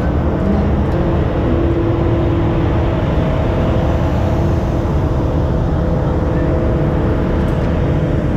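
Steady machine drone with a constant low hum, from equipment running on an airport apron.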